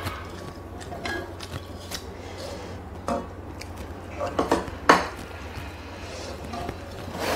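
Chopsticks knocking and scraping against a metal cooking pot and a bowl as curry noodles are lifted and served, a scatter of short clinks with the loudest about five seconds in.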